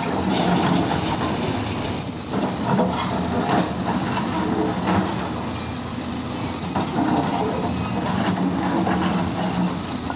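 Hyundai R230 crawler excavator's diesel engine running steadily under load while the bucket scrapes and knocks through broken rock. A thin high squeal comes in for a few seconds about halfway through.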